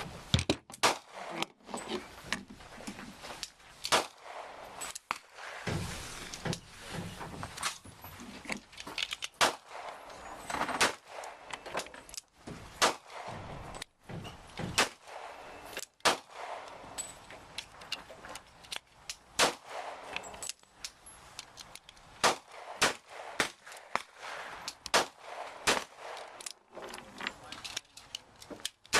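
Pistol shots fired over and over at irregular spacing, some in quick strings of two or three, likely from more than one shooter.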